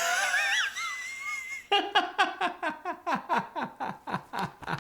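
A man laughing in exaggerated cartoon-character voices: a high wavering squeal first, then a rapid run of short falling-pitch "ha" laughs, about four or five a second.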